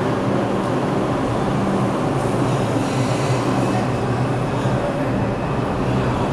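R142 subway train pulling out of the platform, its cars starting to roll past at low speed, with a steady hum and rumble of the train's equipment.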